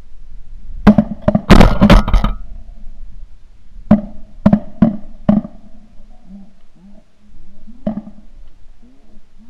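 Shotguns fired by several hunters at passing pigeons: a rapid volley of about five shots, then four more about half a second apart a couple of seconds later, and a single shot near the end.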